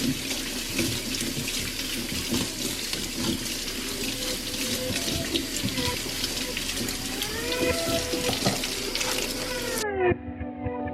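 Water running from a tap into a sink, a steady splashing hiss. Near the end it cuts off suddenly and background music with gliding tones takes over.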